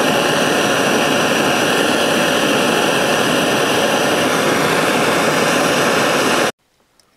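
Gas torch burning with a loud, steady hiss as its flame heats a rusty pulley hub on an engine crankshaft to free seized Allen set screws. The hiss cuts off suddenly about six and a half seconds in.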